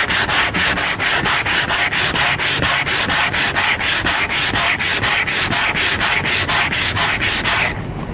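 Sandpaper rubbing back and forth over pine in fast, even strokes, about five a second, stopping shortly before the end: sanding the wood filler around a knot smooth.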